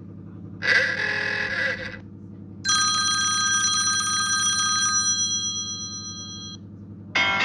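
iPhone ringtone of an old-fashioned telephone bell: a bright bell ring starting suddenly a little under three seconds in, then dying away over a few seconds. About a second in, it is preceded by a short honk-like blare whose pitch dips and rises. A low steady hum sits under it all.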